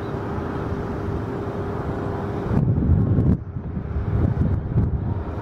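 Wind buffeting the microphone in gusts from about halfway through, over a steady background hum of airport machinery with a constant whine.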